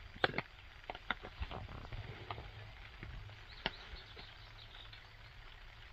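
Soft, scattered clicks and rustles of cooked catfish pieces being picked off a paper-towel-lined plate by hand, over a low steady background rumble.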